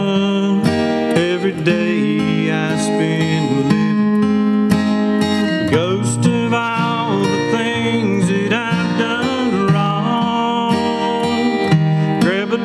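Acoustic guitar played solo, an instrumental passage of a country song.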